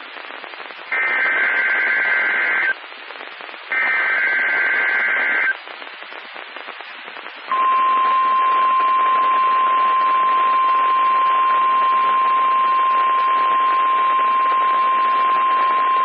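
NOAA Weather Radio Required Weekly Test alert signals over steady static hiss. First come two buzzy, screechy SAME header data bursts of about two seconds each. After a short pause, the steady 1050 Hz weather-radio warning tone starts about halfway through and holds.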